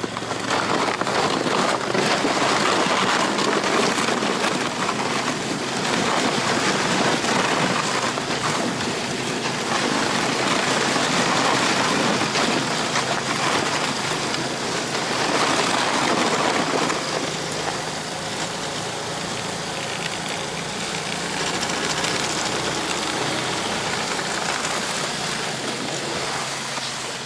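A vehicle's engine running steadily as it drives off, under a strong rushing noise of wind and travel that swells and eases every few seconds.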